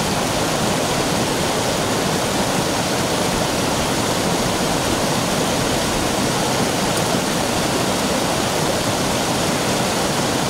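Small mountain stream rushing steadily as it cascades over a rock slab.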